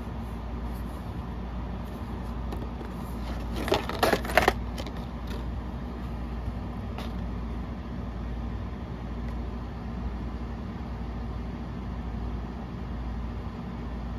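Packaging being handled as an eye-massager wand is taken out of its box: a short cluster of clicks and rustles about four seconds in, then a few faint single clicks, over a steady low hum.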